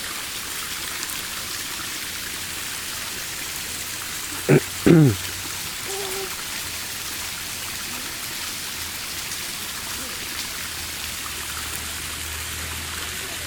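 Steady hiss of running water from a creek. About halfway through, a person makes two short vocal sounds falling in pitch.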